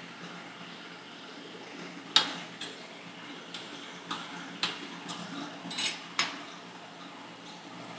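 Metal spatulas striking and scraping on the steel cold plate of a rolled-ice-cream pan. About eight sharp clicks come at uneven intervals, the loudest about two seconds in, over a steady low hum.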